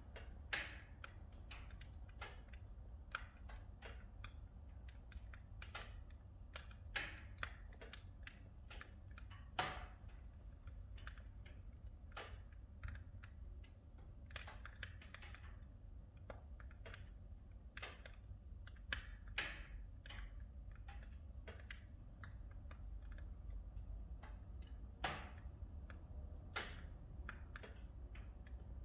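Oak firewood burning in a wood stove, crackling faintly with irregular sharp pops over a low steady rumble.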